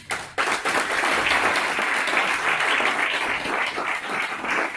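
Audience applauding. The clapping starts all at once about half a second in and then holds steady.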